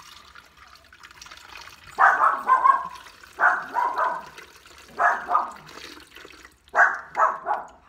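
A dog barking in four bursts of several quick barks each, starting about two seconds in.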